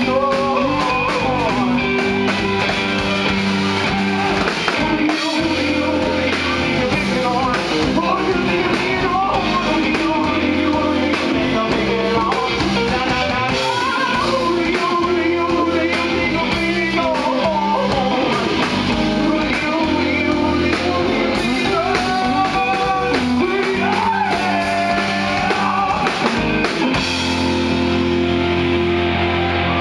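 Live rock band playing: a male singer over electric guitar, bass guitar and drum kit.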